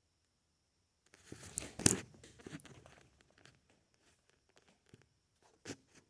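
Handling noise close to the microphone: rustling and crackling that starts about a second in, with a sharp click about two seconds in, then scattered small clicks and a fainter click near the end.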